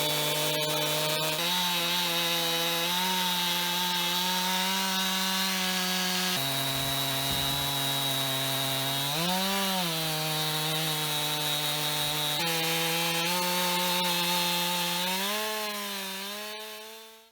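Stihl MS 291 two-stroke chainsaw running at high speed under load, ripping a wet log lengthwise in an Alaskan chainsaw mill. Its pitch jumps abruptly a few times, briefly rises and falls, and the sound fades out at the end.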